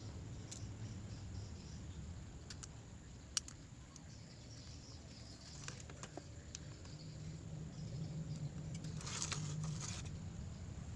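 Scattered small clicks and taps, the sharpest about a third of the way in, then a short scraping rustle near the end, over a low steady hum: small tools and parts being handled during a phone repair.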